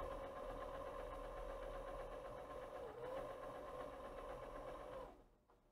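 Motor-driven disc carousel of a 400-disc CD/DVD changer turning a full circle to reach the selected disc: a faint, steady mechanical whir with a light hum that stops abruptly about five seconds in.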